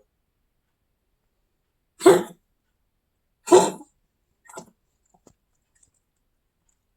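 Coughing: two hard coughs about a second and a half apart, then a fainter third cough about a second later.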